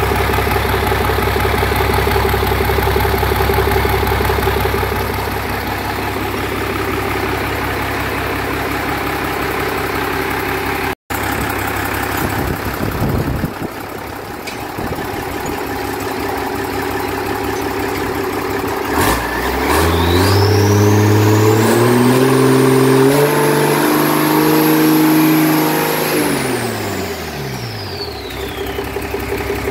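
Yamaha MD750 420-horsepower marine diesel engine running on a test stand. About two-thirds of the way in it is revved up, held at high revs for several seconds, then eased back down toward idle near the end, with a high whine rising and falling with the revs.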